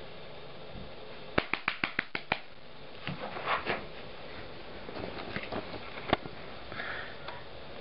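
Arctic fox fetching its toy ball and scrambling onto a blanket right by the microphone: a quick run of about seven sharp clicks in a second, then rustling, then scattered clicks and knocks with one louder knock near the end.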